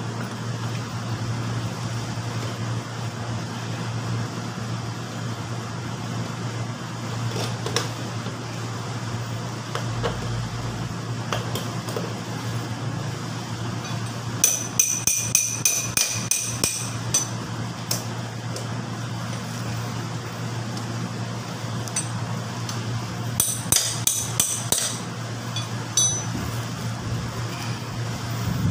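Two runs of quick, light taps on metal, ringing slightly, about halfway through and again near the end, from tools working on motorcycle drum-brake parts as the brake shoes are fitted. A steady low hum runs underneath.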